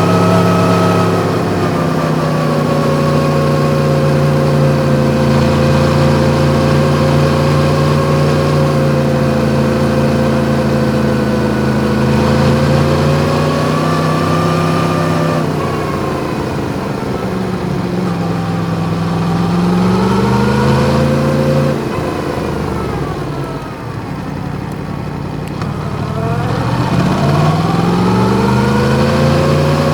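Yamaha MT-10's crossplane inline-four with an Akrapovic exhaust, heard from on board while riding. It holds a steady note, then the revs climb twice, about two-thirds of the way in and again near the end, with the pitch dropping as the throttle closes in between.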